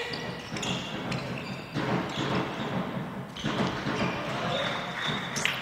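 Handball match play on an indoor hall court: the ball bouncing on the wooden floor and players' running footsteps, with the hall's reverberation.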